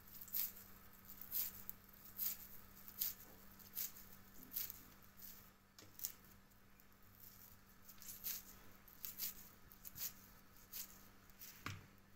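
Wet hands squeezing and patting moist köfte mixture and setting the shaped pieces down in an aluminium tray: soft, irregular pats and squishes, roughly one a second, over a faint steady hum.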